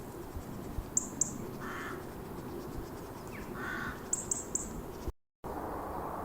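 A bird calling twice outdoors, the calls about two seconds apart, over a steady low background, with a few sharp high clicks in between.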